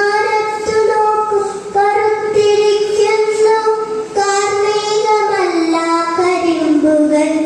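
Children singing a slow melody in long held notes, phrase after phrase, the tune stepping down lower near the end.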